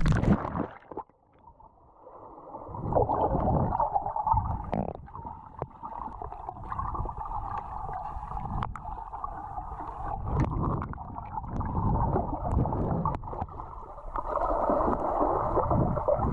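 Water splashing as a freediver ducks under, then the muffled rush and knocking of water picked up by a GoPro underwater as he swims down, dull with no high sound in it.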